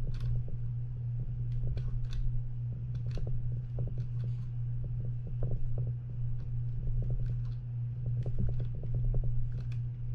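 Wing nut being turned along the Penn 9/0 reel's straightened rod clamp screw: scattered small metallic clicks and scrapes as the damaged threads bind and re-form, over a steady low hum.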